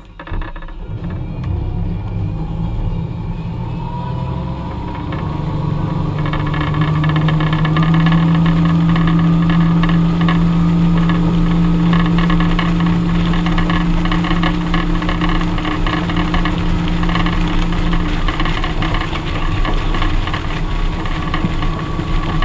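Tow boat's engine speeding up from low speed to pull a wakeboarder out of the water, rising in pitch and loudness over the first several seconds. It then runs steadily at towing speed with the rush of the boat's wake.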